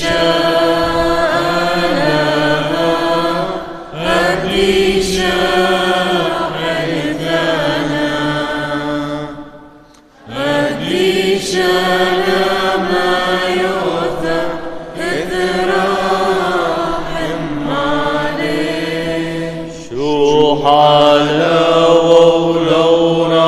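Chaldean liturgical chant in Aramaic: long sung phrases that rise and fall over a steady low drone. It breaks off briefly about ten seconds in and comes back louder near the end.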